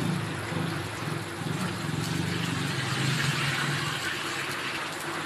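Jalebis frying in hot oil in a wide iron karahi, the oil sizzling steadily. A low engine-like drone runs underneath and fades out about four seconds in.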